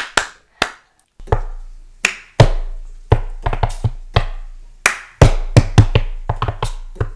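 Percussion music: an unevenly spaced run of sharp drum hits, each ringing out briefly, with a deep bass boom under the heavier hits from about a second in.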